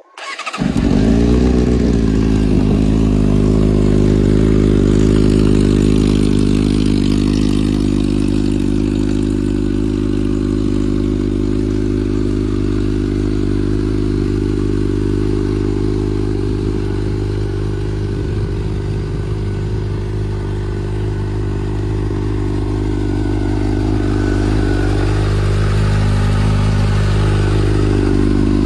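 600cc inline-four sport motorcycle engine starting up about half a second in, its pitch falling over a couple of seconds as it settles into a steady idle.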